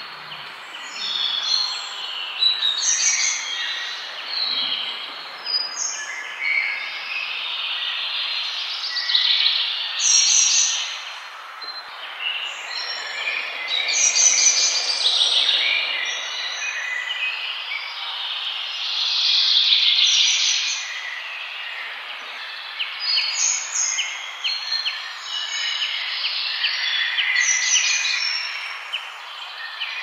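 Many small birds chirping and singing over one another: a dense chorus of short, repeated high notes and trills over a steady background of outdoor noise.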